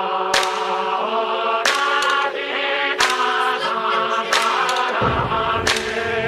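Background music with choir-like sustained singing and a sharp hit about every 1.3 seconds; deep bass comes in about five seconds in.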